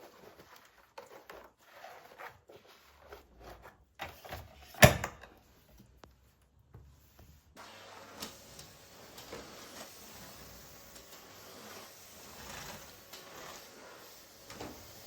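Small clicks and knocks of household objects being handled, with one loud knock about five seconds in; after about seven and a half seconds a steady soft hiss sets in under a few fainter knocks.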